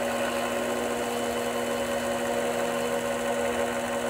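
Small benchtop lathe running with a steady motor hum and whine while a small brass bushing is parted off the spinning stock.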